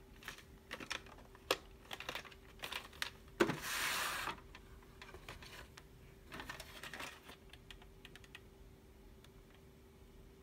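Plastic VHS clamshell case handled and opened, giving a scatter of small clicks, a louder snap about three and a half seconds in followed by a short scraping slide as the cassette comes out, then soft plastic rattles as the tape is turned in the hand.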